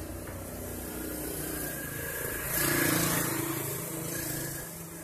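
Motor vehicle passing by, its engine running steadily and swelling to the loudest point about three seconds in before fading.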